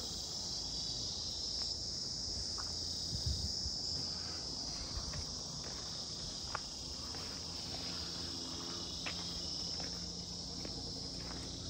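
Insects chirring in a steady, high-pitched chorus, with a few faint clicks here and there.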